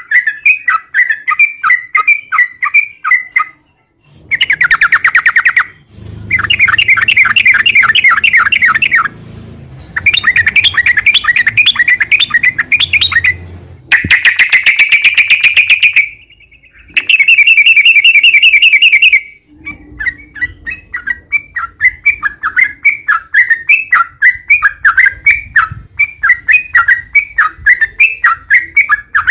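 Yellow-vented bulbul (trucukan) calling: quick repeated chirps, broken from about four seconds in by five long, fast rolling trills (the 'ropel' runs) with short gaps between, after which the quick chirps resume.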